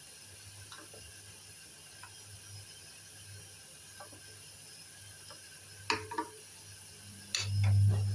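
Small pot of water and herbal soup ingredients heating on a stove toward the boil, with faint scattered ticks and pops over a steady low hum. About six seconds in come a couple of sharp clinks, then a louder clatter with a deeper thump near the end.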